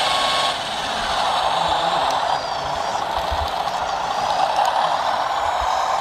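Radio-controlled scale Mercedes-Benz Arocs tipper truck driving loaded over sand, a steady motor sound that swells and eases a little.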